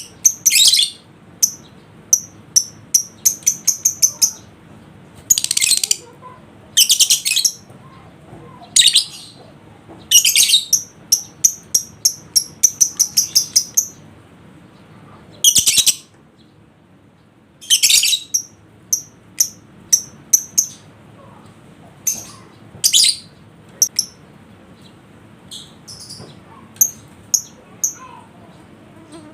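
Lovebirds calling: quick runs of sharp, very high chirps alternating with short, harsh chattering bursts, repeating with brief pauses.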